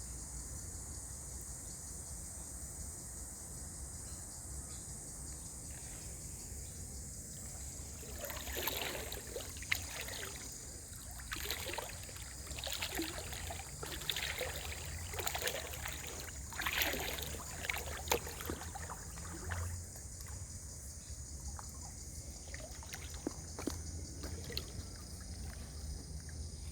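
Creek water splashing and sloshing in irregular bursts, from about a third of the way in to about two-thirds, over a steady high-pitched hiss.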